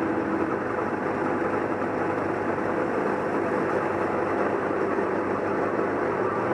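Sherp ATV's diesel engine running steadily as the vehicle drives slowly through shallow water and mud.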